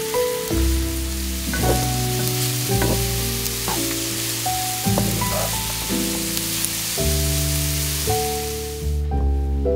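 Diced aubergine and onion sizzling in hot olive oil in a frying pan while being stirred with a wooden spatula, over background music with slow changing notes. The sizzle cuts off about a second before the end.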